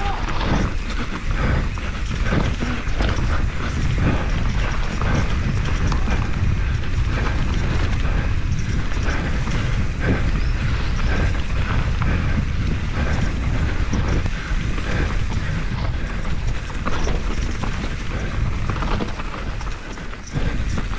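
2019 YT Capra full-suspension mountain bike descending a rough trail: continuous tyre and trail noise with frequent knocks and rattles from the chain and suspension, and wind rumbling on the microphone.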